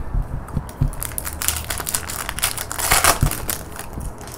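Trading-card pack's foil wrapper torn open and crinkled: a dense crackling that builds from about a second in and is loudest near three seconds.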